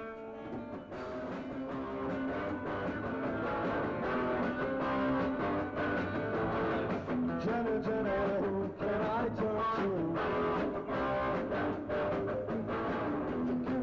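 Live rock band playing: electric guitar over drums, with a lead line that bends in pitch and a steady drum beat.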